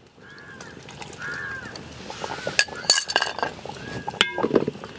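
Steel spoon and ladle clinking against a large aluminium cooking pot as cornflour slurry is added to simmering vegetable soup and stirred in. There are several sharp clinks around the middle and one more about four seconds in.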